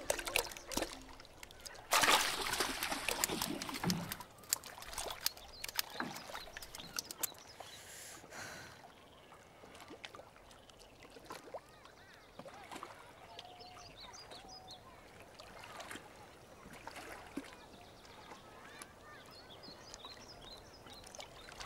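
Water splashing in a wooden rowboat about two seconds in, then dripping and small knocks as a fish is handled, with waterfowl calling faintly.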